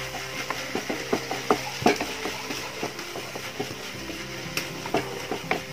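Slotted spatula scraping and knocking against a nonstick pan as banana pieces and grated coconut are stirred, in irregular strokes, over a light sizzle of ghee.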